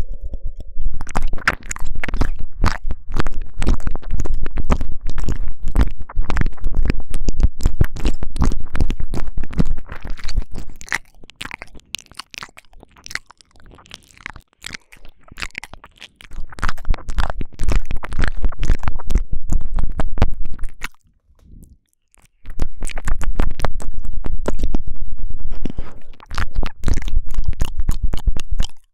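Intense wet mouth sounds right on a binaural microphone's ear (ASMR ear eating): a dense crackle of quick clicks, smacks and licks over deep rumbling thumps from the mouth pressing against the mic. It eases off about eleven seconds in, stops briefly a little after twenty seconds, then comes back loud.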